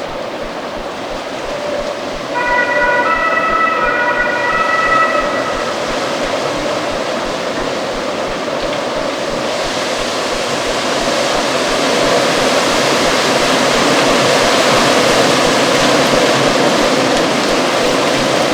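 Strong, gusty autumn wind blowing steadily and swelling louder through the second half. About two seconds in, a high whistle of several steady tones sounds for about three seconds.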